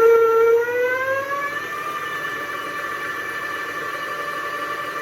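Small milling machine cutting with a half-inch four-flute end mill, giving a high-pitched whine. The whine rises in pitch over the first two seconds, then holds steady and a little quieter.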